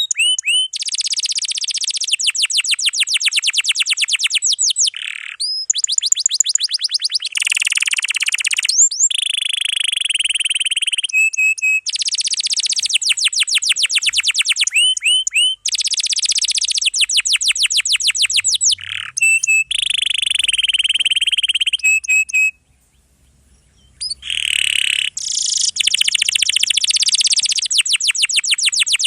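Domestic canary singing long, rapid rolling trills of fast repeated notes, switching from one trill to the next every second or so. It pauses once for about a second and a half near the end, then carries on.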